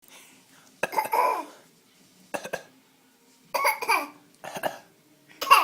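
A baby making deliberate, put-on coughs: about five short bursts roughly a second apart, with some laughter mixed in.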